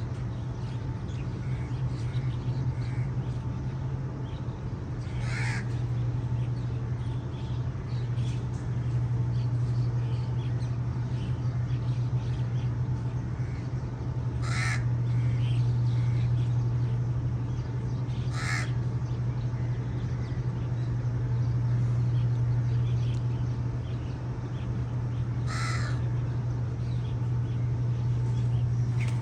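A bird calling four times, short harsh single calls spread out over the stretch, over a steady low hum.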